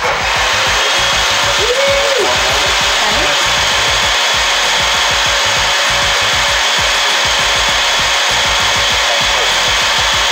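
Countertop blender switched on and running steadily, blending a liquid prickly pear vinaigrette; the loud whirring starts suddenly and holds even throughout.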